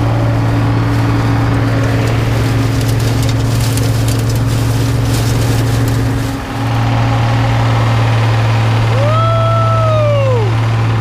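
Combine engine and threshing machinery running steadily while harvesting soybeans, heard close up from the machine's rear platform: a loud, steady low hum that dips briefly about six seconds in. Near the end a short tone rises and falls.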